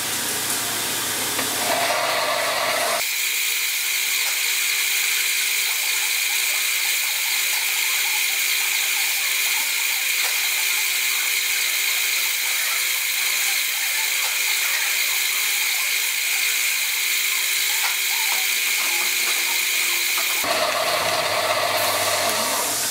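Warco Super Mini Lathe with brushless motor running, spinning its chuck while centre-drilling a brass rod. A steady whine of several tones starts abruptly about three seconds in and cuts off about two seconds before the end, with a hiss before and after it.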